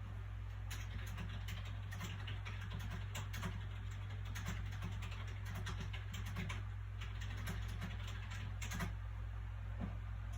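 Soft paper sounds from a book being handled: small, irregular ticks and crackles with no steady rhythm, over a steady low background hum.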